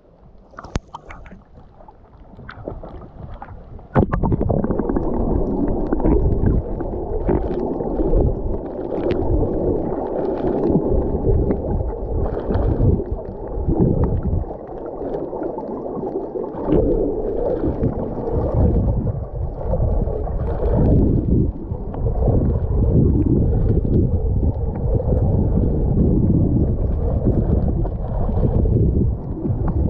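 Muffled underwater rushing and gurgling of water moving around a submerged camera, with scattered small clicks and bubble sounds. It starts abruptly about four seconds in as the camera goes under, after a quieter stretch at the surface.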